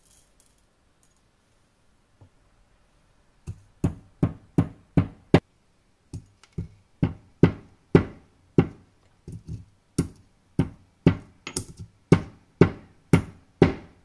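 Marble pestle pounding cloves and black peppercorns in a marble mortar: sharp stone-on-stone knocks, about two a second, starting a few seconds in after a few faint clicks as the spices are dropped into the bowl.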